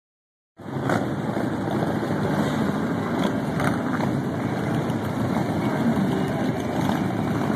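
Several cruiser motorcycles with V-twin engines running as they roll slowly past in a procession, a steady, dense engine noise. It starts abruptly about half a second in.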